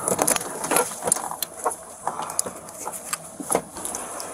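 Clothing rustle with scattered clicks and knocks as a seatbelt is pulled over and fastened across a person in a car's back seat, rubbing close against a body-worn camera's microphone, over a steady faint high hiss.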